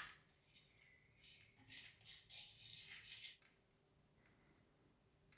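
Near silence, with a few faint light scrapes and clicks over a couple of seconds as a brake disc rotor is slid off a bicycle wheel's Centerlock hub.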